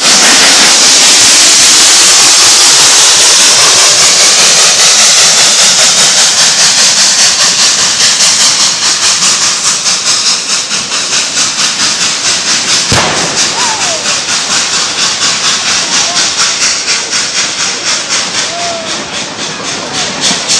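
Narrow-gauge steam train rolling past: a loud steam hiss that fades over the first several seconds as the locomotive draws away, over a steady rhythmic beat as the cars pass, with a single sharp clack about halfway through.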